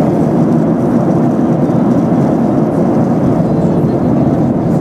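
Steady cabin noise of a jet airliner in flight: an even, deep rush of engines and airflow that does not change.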